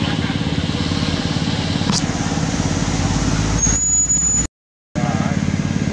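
An engine running steadily with a fast low pulsing. A thin high squeal comes in past the middle, then all sound cuts out for under half a second before the engine sound resumes.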